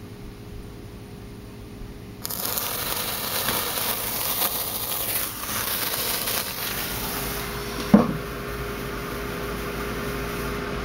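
A sparkler catching about two seconds in and burning with a loud fizzing, crackling hiss for about five seconds as it is held to a thermite charge, then a single sharp knock, after which a quieter hiss carries on.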